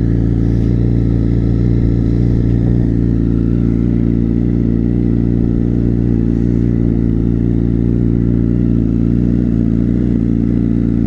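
Honda CBR1000RR's inline-four engine idling steadily through an Akrapovič exhaust with the dB killer removed.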